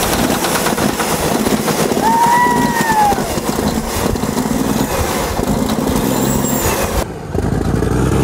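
Old Caterpillar D8 bulldozer's diesel engine, loud and steady, with a whistle that rises and falls about two seconds in. The sound changes abruptly about seven seconds in.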